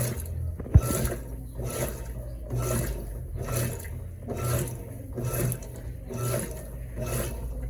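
Electrolux LTE12 top-loading washing machine agitating clothes in water on its delicate setting: the agitator swishes the water back and forth about once a second over a steady low hum.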